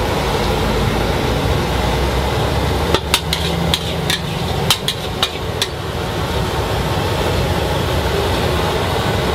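A metal spatula clanking sharply against a wok, a quick run of about eight strikes between three and six seconds in, as fried noodles are stir-fried over a steady low roar.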